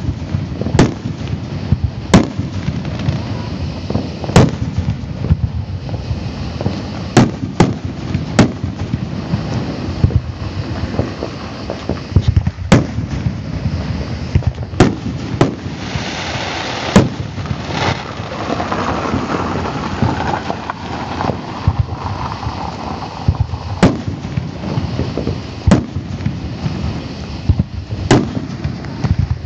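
Aerial fireworks shells bursting one after another, a dozen or so sharp bangs a second or several seconds apart, over a steady low rumble, with a stretch of hissing crackle around the middle.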